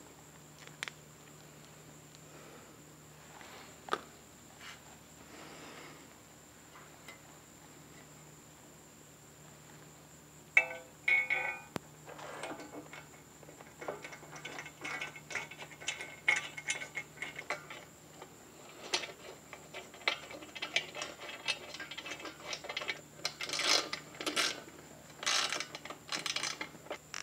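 A metal pannier rack knocks into place with a short metallic ring about ten seconds in. Then a socket ratchet wrench clicks in short quick runs as the rack's mounting bolts are driven in, growing louder near the end.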